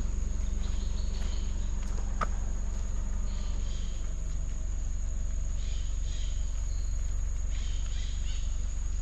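Insects droning steadily at a high pitch over the low hum of a running car, with a single sharp click about two seconds in.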